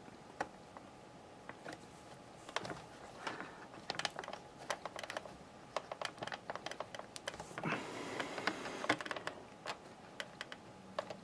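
Scattered small plastic clicks and taps, with a stretch of fabric rustling about eight seconds in, as hands press the plastic mouth piece back into a plush 1992 Playskool Teddy Ruxpin's head.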